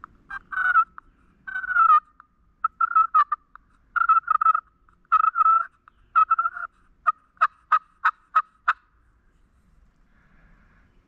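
An animal calling loudly and repeatedly, in bursts of rapid pulsed calls, then a run of short, evenly spaced calls about three a second near the end.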